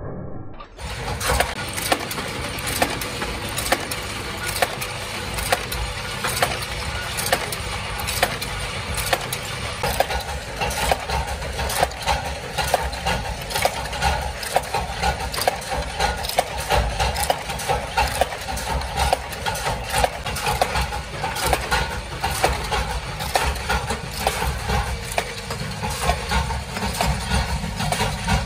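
Metal-forming machinery running with a dense, irregular clatter of metal clicks over a steady low rumble. It starts suddenly about a second in.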